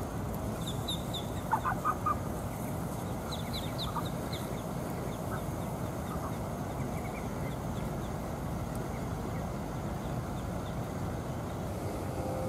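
Muscovy ducklings peeping in short, high chirps, scattered through the first few seconds, with a quick run of four louder, lower calls about a second and a half in. A steady background noise runs underneath.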